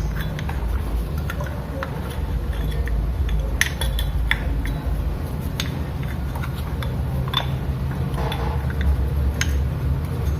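Scattered light metallic clicks and clinks of motorcycle brake pads and caliper parts being handled and fitted by hand, over a steady low hum.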